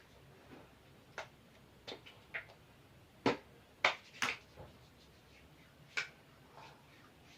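About ten short, sharp clicks or taps at uneven intervals, the loudest few near the middle.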